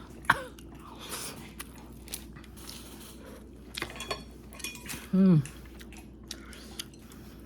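Cutlery tapping and clinking against dishes, with light chewing, during a meal. About five seconds in comes a short vocal sound that falls in pitch.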